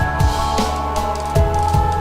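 Background music with a drum kit: kick-drum beats, cymbal strokes and sustained bass and keyboard-like tones.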